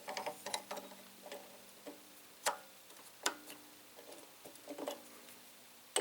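Light metal clicks and taps from a mini lathe's chuck being worked by hand with its chuck key while a tube is repositioned in the jaws, with two sharper ringing clinks about two and a half and three and a quarter seconds in.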